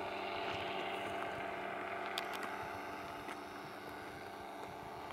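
Fresh Breeze BulliX paramotor trike's engine and propeller droning steadily overhead in flight, growing slightly fainter as it flies away.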